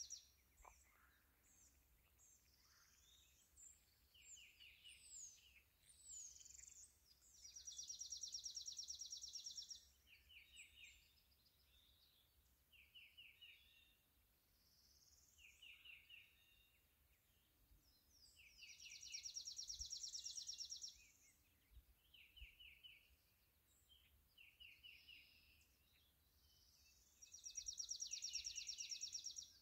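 Faint songbirds singing: a long, high, rapid trill repeats about every ten seconds, while shorter, lower trills come between, with scattered chirps.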